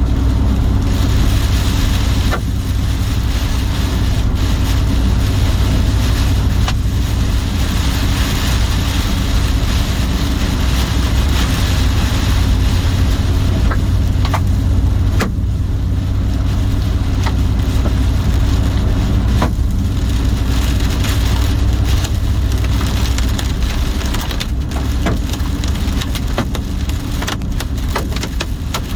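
Hail and heavy rain drumming on a vehicle's roof and windshield, heard from inside the cabin, with sharp cracks of individual hailstones striking that come more often near the end. Under it runs the steady low rumble of the vehicle.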